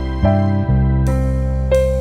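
Background music: soft keyboard chords over a held bass. The chord changes about a quarter second in, and a piano note is struck near the end.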